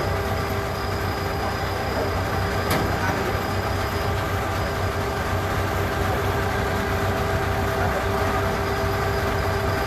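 The engine of a heavy vehicle running steadily, with a low hum and a steady whine over it; a single sharp click a little under three seconds in.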